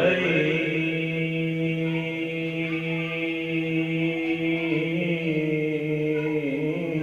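Devotional chanting: a long, held note that stays nearly level in pitch, wavering slightly near the end.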